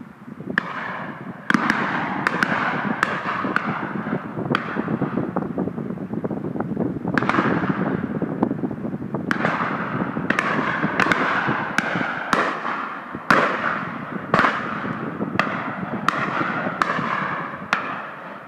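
Shotguns firing in an irregular barrage during a driven game shoot: about twenty sharp reports, some in quick pairs, each with a short echoing tail, over a steady rushing noise.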